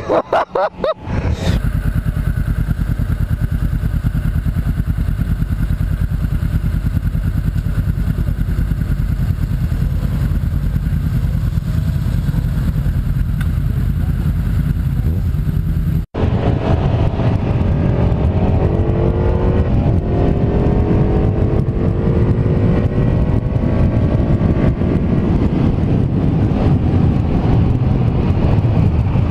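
Honda 500-series parallel-twin motorcycle ridden at highway speed: steady engine and wind noise on the rider's microphone. After a brief break about halfway through, the engine note climbs steadily as the bike accelerates.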